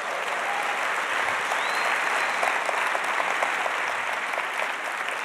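Large audience applauding, a dense even clapping that eases off slightly near the end.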